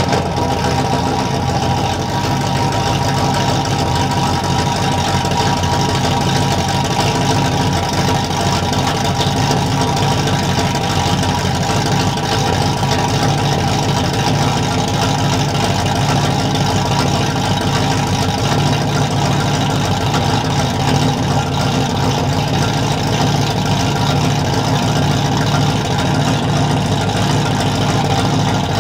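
Cammed OBS Chevrolet pickup engine idling steadily just after a cold start, running through long-tube headers and 2½-inch dual exhaust with an X-pipe.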